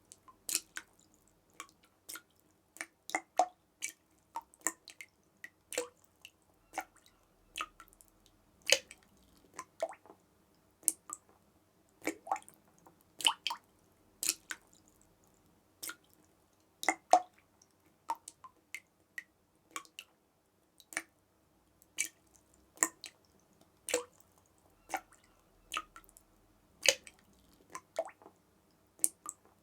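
Water drops falling and dripping irregularly, sharp plinks of varying loudness, about one to three a second.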